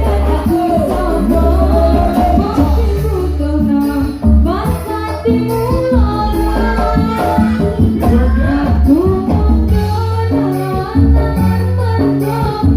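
Live electone band music with a heavy, steady bass and a melody line over it.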